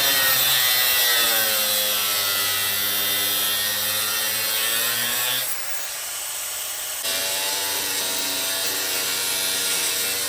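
Electric power tool cutting through seat screws, its motor pitch sagging and recovering under load. The cutting eases off about five and a half seconds in and bites again a second and a half later.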